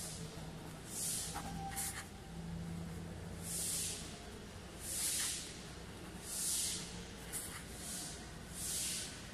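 A pen writing on notebook paper: soft hissing strokes, each about half a second, coming every second or so, over a faint low hum.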